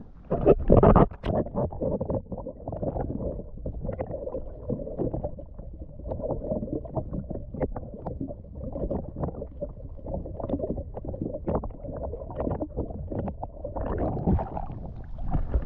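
Water slapping and lapping against the hull of a jet ski sitting idle on choppy sea, with wind buffeting the microphone; a louder splashing burst comes about half a second in.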